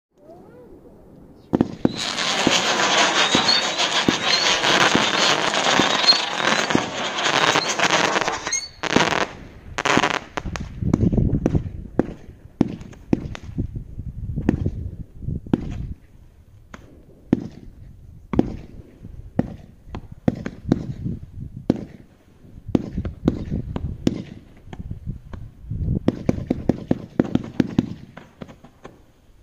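A low-noise firework barrage cake (Wild One, 81 shots) firing. After a sharp start it gives a dense hissing crackle for about seven seconds, then a long run of separate soft pops and crackles with dull low thumps.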